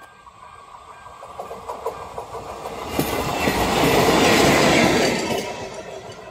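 Short regional passenger train passing at speed, its wheels clicking over the rail joints: it builds as it approaches, is loudest about four seconds in as it goes by, then fades away.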